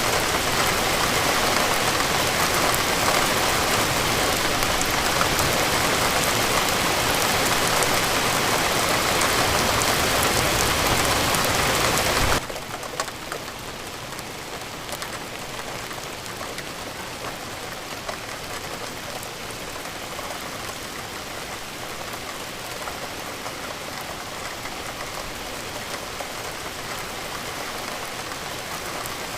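Steady rain falling, a dense hiss with no pauses. About twelve seconds in it drops abruptly to a softer, quieter rain that carries on steadily.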